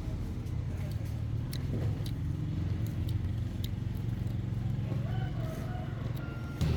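A crane's engine running steadily with a low drone, with scattered light clicks and knocks. A few short high tones sound briefly around five to six seconds in, and the engine gets louder near the end.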